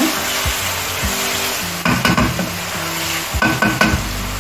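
Blended pepper and onion sauce sizzling in hot oil in a non-stick wok while a wooden spatula stirs it, with clusters of spatula scrapes and knocks against the pan about two seconds in and again near the end.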